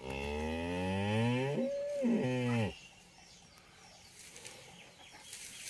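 A freshly calved cow mooing once: a long, low call of nearly three seconds that rises in pitch and falls away as it ends. It is a mother cow calling for her calf.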